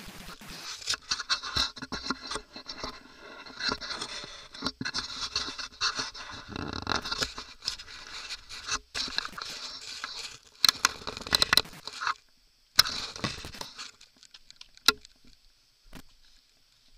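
Dry scrub scraping and crackling against a helmet-mounted camera, with many sharp clicks, dying away about twelve seconds in to a few isolated clicks.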